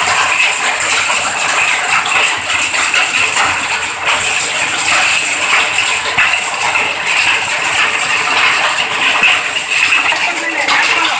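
Hailstorm: hailstones and heavy rain hitting hard surfaces in a dense, steady stream of small impacts.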